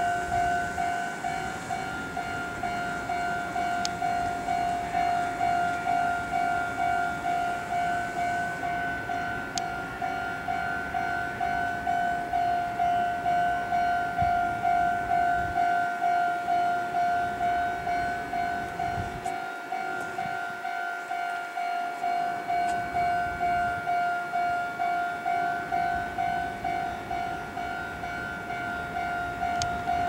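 Japanese railway level-crossing warning bell ringing: an electronic ding repeating steadily and evenly while the crossing is closed for an approaching train.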